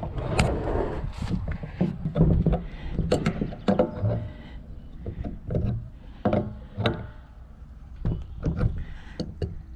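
Adjustable wrench clicking and scraping against a brass ball valve and its fittings as they are turned tight onto a PVC tee: a run of short, irregular clicks and knocks.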